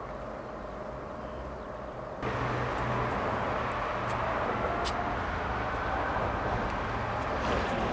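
Jet airliner engine noise in the open air: a steady rush with a faint whine. It steps up abruptly about two seconds in and then holds.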